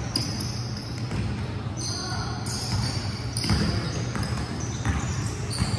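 Basketball bouncing on a hardwood gym floor during play, a few irregular thuds echoing in the large hall, with players' voices in the background.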